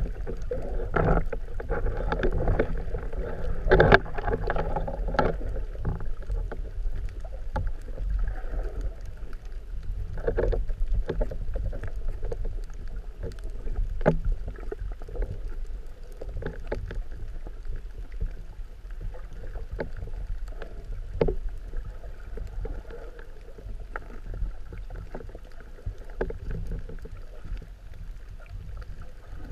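Underwater ambience picked up through a camera's waterproof housing: a steady low rumble of water movement with scattered clicks and crackles, louder for the first few seconds.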